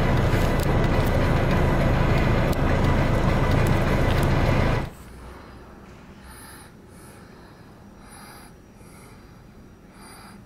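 Steady low rumble of a car's cabin noise in slow traffic. It cuts off abruptly about five seconds in, leaving a much quieter background with a few faint high-pitched chirps.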